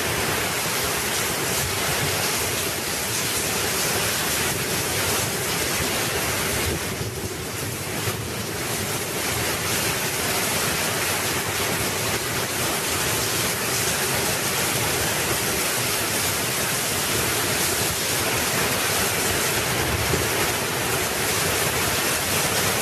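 Heavy rainstorm: a dense, steady downpour of rain with wind.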